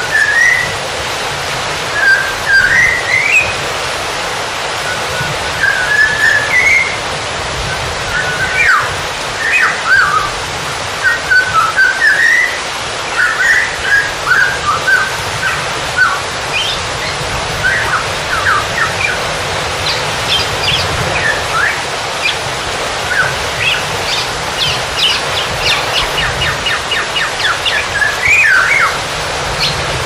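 Birds calling with short rising whistles and chirps over a steady rush of water. A little before the end a quick run of higher chirps comes in.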